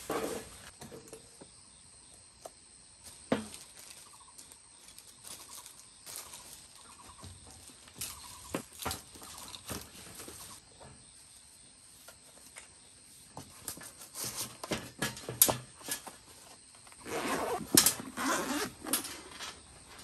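Camping gear being handled: scattered taps and clicks as items are picked up and set down on a hard table, then a longer rustling stretch near the end as a soft zippered carrying case is handled and opened.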